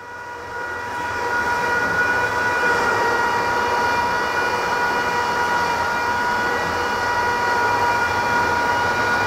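Homemade induction heater driven by an MMA-120A inverter welding machine, running under load with a screwdriver blade inside its copper-tube work coil. It gives a steady high whine over a hiss, which grows louder over the first couple of seconds and then holds steady.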